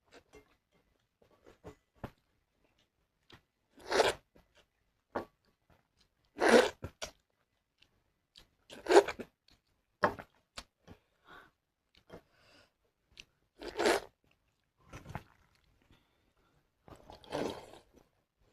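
Close-miked eating of watered rice and fried mushrooms: five loud, short mouthfuls a few seconds apart, with quiet chewing clicks between them.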